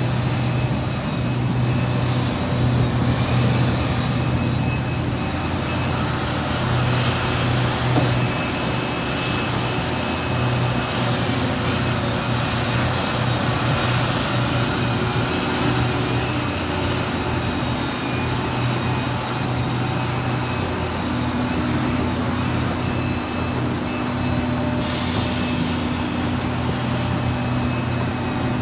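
Liebherr R 976 crawler excavator working: its diesel engine runs with a steady low drone under hydraulic load as it swings and digs. A short hiss comes late on.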